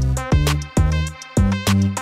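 Background music with a steady beat: sharp plucked notes over a bass line, a new note roughly every half second.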